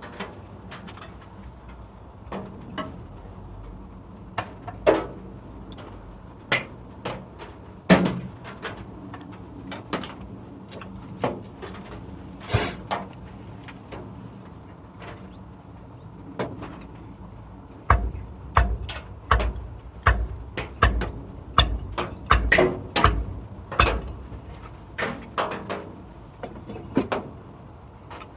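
A series of scattered knocks and taps of handwork. In the second half they become a run of heavier thuds about twice a second, lasting some six seconds.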